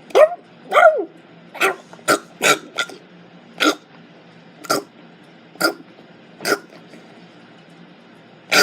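A person's voice imitating a dog barking: about ten short bark-like yelps, roughly one a second, spacing out in the second half, then a louder, longer breathy burst at the very end.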